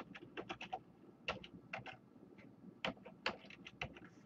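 Computer keyboard keystrokes, quiet clicks coming in short irregular runs as a web address is typed.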